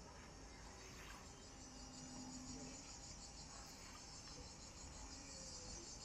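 Faint, steady high-pitched chorus of cicadas.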